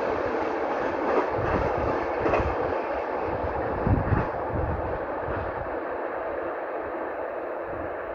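Freight train's wagons rolling away, with a steady rumble and irregular knocks of wheels over rail joints, fading slowly as the train draws off.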